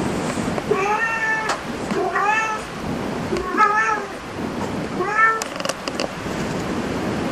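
Domestic cat meowing four times, about one meow every second and a half, each call rising and then falling in pitch, over a steady low background hiss.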